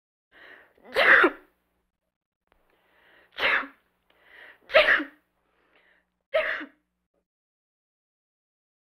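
A woman sneezing four times, one to two and a half seconds apart, most sneezes preceded by a quick intake of breath.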